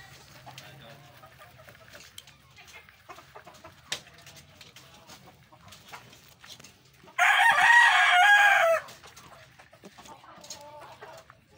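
A rooster crows once, loudly, for about a second and a half, starting about seven seconds in, over faint scattered background sounds.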